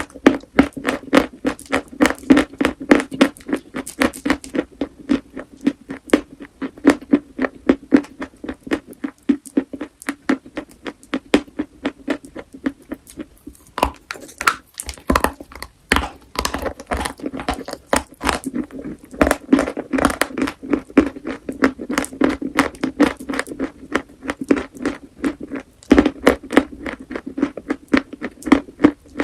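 Chalk being bitten and chewed close to the microphone: rapid sharp crunches, several a second, with a brief lull about halfway through.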